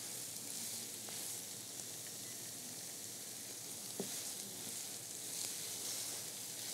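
Vegetarian ground-meat filling with onion and bell peppers sizzling in a nonstick skillet over raised heat, a steady hiss, while a wooden spatula stirs it. A few light knocks of the spatula on the pan, the clearest about four seconds in.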